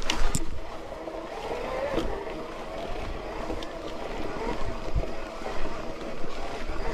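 Hardtail mountain bike ridden over a wet, muddy trail: tyres rolling through mud and puddles and the bike rattling and knocking over bumps, with wind rushing over the camera microphone. A sharp knock stands out near the start, where it is loudest.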